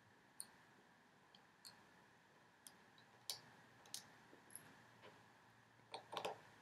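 Faint, scattered single clicks of a small Phillips screwdriver turning the screw out of a plastic battery compartment door, about one a second, then a few slightly louder clicks near the end as the door is lifted off.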